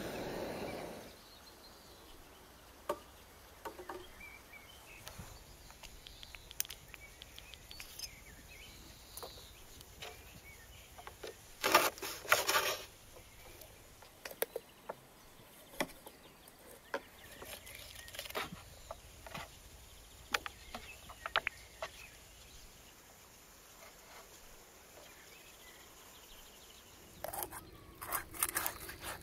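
A handheld gas torch hissing, cutting off about a second in. Then a knife cutting up a raw plucked bird on a wooden board: scattered knocks and slicing sounds, a loud cluster of cuts about twelve seconds in, and a run of knocks near the end.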